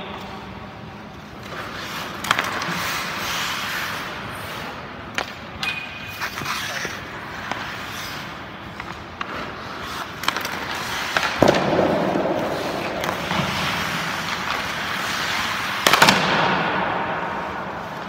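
Ice skates scraping and carving on the rink ice, with sharp cracks of hockey sticks shooting pucks and pucks striking pads or boards, ringing in the arena. The loudest cracks come about eleven and sixteen seconds in.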